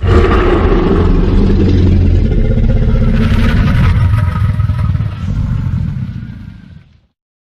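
A movie sound effect: a heavy low rumbling with a higher wavering tone over it. It cuts in suddenly and fades away over the last couple of seconds.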